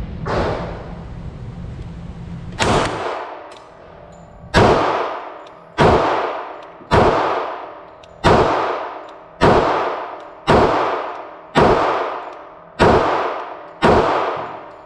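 Glock 30SF pistol firing .45 ACP rounds: ten loud shots, the first on its own and the last nine evenly about one a second, each echoing off the concrete walls of an indoor range. A fainter bang comes right at the start, and a low steady hum stops about three seconds in.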